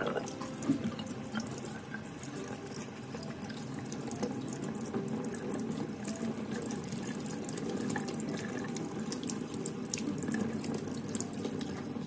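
Kitchen tap running steadily into a stainless steel sink, the stream splashing over a mesh coffee filter as it is rinsed by hand.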